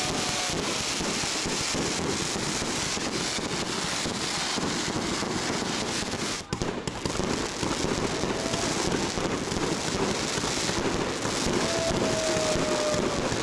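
Ground-launched fireworks going off in a dense, continuous crackle of rapid pops, with a brief break about six and a half seconds in and a faint falling whistle near the end.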